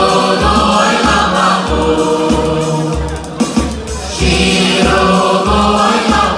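Boys' choir singing into microphones, amplified through a PA, over accompaniment with a steady low bass beat about twice a second.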